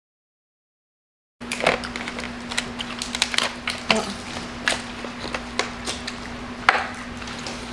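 Silence for about the first second and a half, then king crab leg shells being cracked and broken apart by hand: an irregular run of sharp cracks and crunches over a steady low hum.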